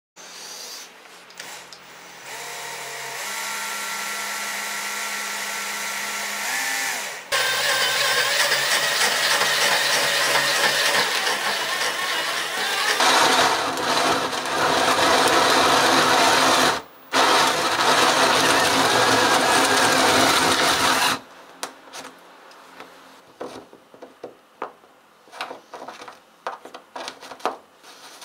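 Cordless drill boring into the underside of a desktop board. The motor runs at first with a steady whine, then cuts loudly for about fourteen seconds with a brief stop partway through. It then stops, leaving scattered light clicks and knocks.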